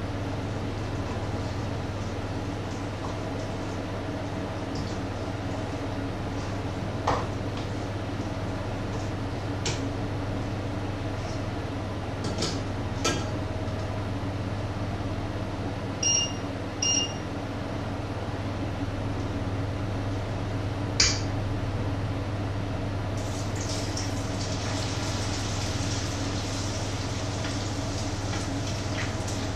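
Kitchen cooking sounds over a steady low hum: scattered clinks and knocks of pots, pans and utensils, two short electronic beeps a little past halfway, and a soft hiss that sets in about three-quarters through.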